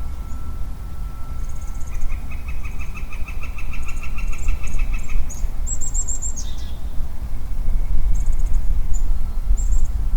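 A male Western Chorus Frog giving one long pulsed trill, about six clicks a second, a couple of seconds in. Small birds chirp high above it, and a steady low rumble runs underneath.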